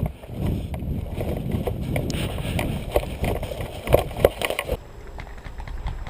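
Rustling, scuffing and scattered small knocks and clicks from an airsoft player moving on foot with gear, the knocks densest a little before the sound changes about three quarters of the way through.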